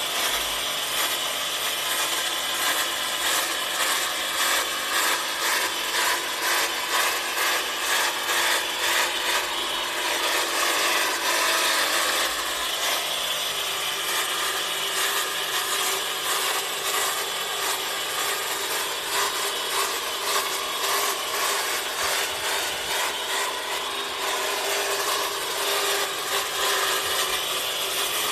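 Long-reach pole hedge trimmer running and cutting through dense conifer foliage, its cutting noise swelling and fading in a steady rhythm with each sweep of the blade.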